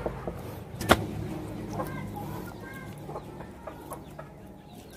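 Chickens clucking in a few short calls over the soft, wet rustle of feathers being pulled by hand from a scalded chicken, with one sharp knock about a second in.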